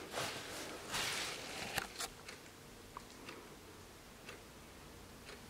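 Junghans wall clock ticking about once a second, with brief rustling handling noise in the first second and a half.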